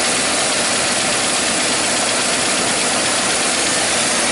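Ford 5.8-litre Windsor V8 idling steadily, running smooth.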